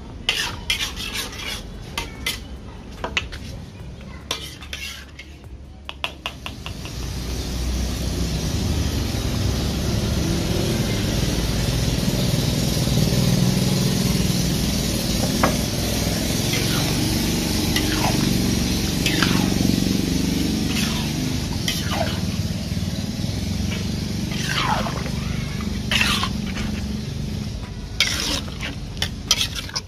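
Metal spatula scraping and clinking against a large aluminium wok of fish curry. From about seven seconds in, the coconut-milk curry bubbles and sizzles steadily in the wok, with the spatula scraping through it now and then.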